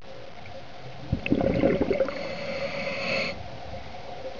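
Scuba diver breathing underwater through a regulator: a burst of bubbling exhaust about a second in, then a hissing inhale that cuts off sharply, over a faint steady hum.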